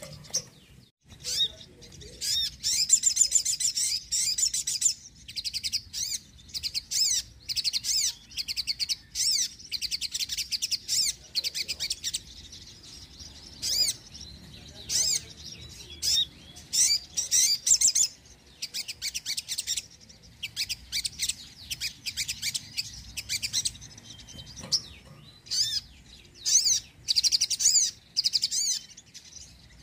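Sogon, a sunbird, singing continuously: rapid, high-pitched chirping trills in short bursts of a second or two, separated by brief pauses.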